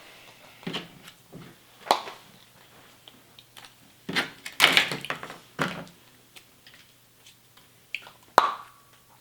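Scattered clicks, knocks and rustles of hands handling small plastic Kinder Surprise toy pieces and capsules on a table, louder for a couple of seconds about halfway through.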